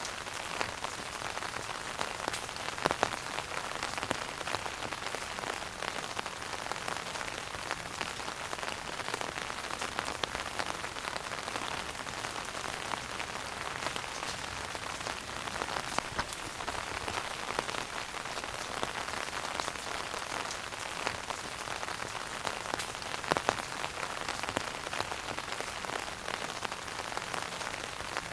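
Wood fire burning in a fireplace: a steady hiss with constant small crackles and a few louder pops scattered through.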